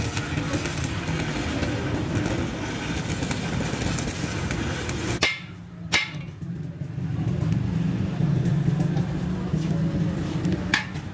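Stick arc welding on a truck's steel rear axle housing, a steady crackle, which cuts off abruptly about five seconds in. Then a hammer strikes the freshly welded housing, knocking off slag: one sharp blow about a second after the cut and another near the end, with lighter knocks between.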